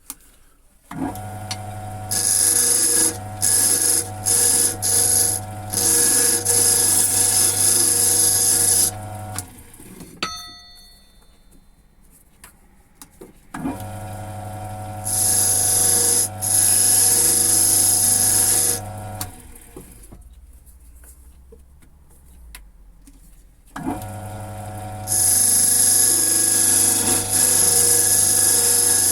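A lathe running, with a turning tool scraping plastic as it turns down a piece on a wooden mandrel. The lathe is switched off and started again twice, and the scraping comes in repeated passes while it runs.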